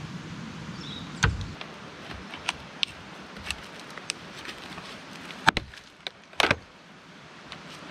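Hammer knocking at buckets fitted around a structure's support posts to work them loose: scattered sharp knocks and clicks at uneven intervals, with the heaviest blows about a second in and two more just past the middle.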